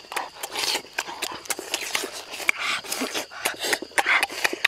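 Wet chewing, lip-smacking and slurping of people eating roast goose with their hands: many quick irregular smacks, several a second, with breathy noises between.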